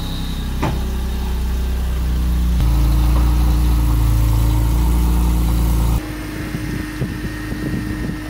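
BMW E46 M3's straight-six engine idling as the car is moved at low speed. The rumble shifts abruptly twice, about two and a half and six seconds in.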